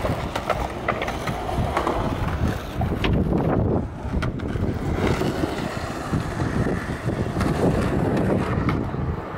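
Skateboards rolling over the concrete of a skate bowl, with sharp clacks as boards and wheels strike the surface every second or so, and wind rumbling on the microphone.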